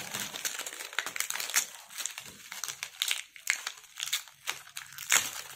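Clear plastic packaging bag crinkling and crackling as it is pulled off a scooter CVT pulley ramp plate, with irregular sharp crackles and one louder crackle near the end.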